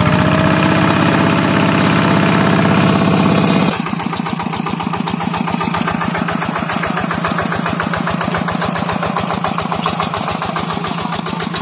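Engine of a two-wheel walking tractor (e-taek) dragging a net through a pond. It runs hard with the revs creeping up, is throttled back suddenly about four seconds in, and runs on at lower revs with an even firing beat.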